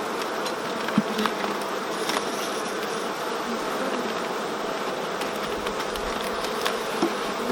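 Honeybees of an open, queenless colony with a laying worker buzzing steadily, with a few light clicks from handling the hive.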